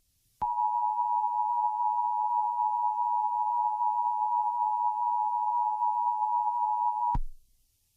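Emergency Alert System attention signal: a steady electronic tone of two close pitches sounding together, starting just after the start and cutting off sharply about seven seconds later.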